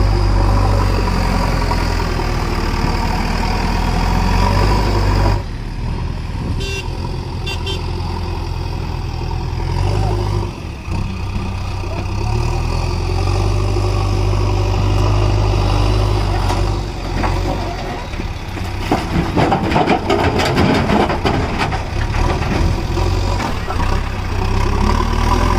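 Heavy diesel engine of a JCB backhoe loader running, its note shifting abruptly a few times. In the second half comes a dense run of clattering and knocking.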